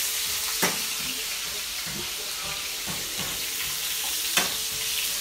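Sausages sizzling in a frying pan: a steady hiss, with two sharp clicks, one under a second in and one near the end.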